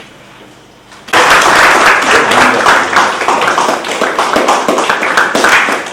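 A group of people applauding, the clapping starting suddenly about a second in and going on steadily.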